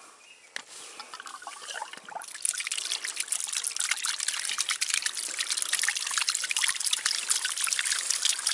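Water spraying out of the brass valve of a ram pump as it is started up. The spray starts about two seconds in and then splashes steadily onto the rocks below.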